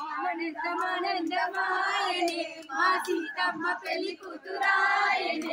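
Several voices singing a devotional song together, with held, gently wavering notes and a few short breaks between phrases.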